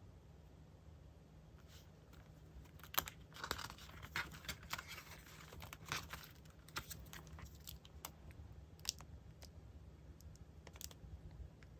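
Paper goods and packaging being handled: a stretch of crinkling rustle about three to six seconds in, with scattered light clicks and taps throughout.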